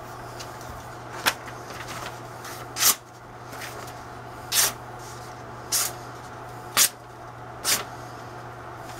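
A sheet of paper being sliced with a sharp handmade knife: six short, crisp swishes as the blade cuts through, spaced about a second apart. A steady low hum lies under them.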